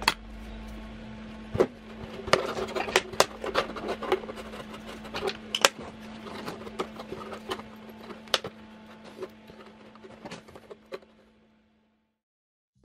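Irregular clicks and crackles of a thin plastic bottle being handled and held under a scooter engine to catch draining oil, with a sharp tool click right at the start, over a steady low hum. The sound cuts to silence about a second before the end.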